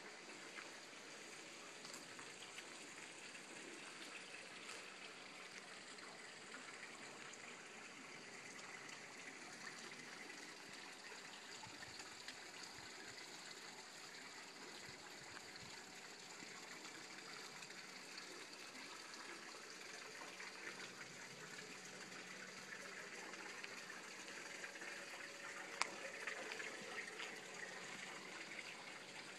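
Faint, steady rushing noise with a low hum under it, broken by one sharp click near the end.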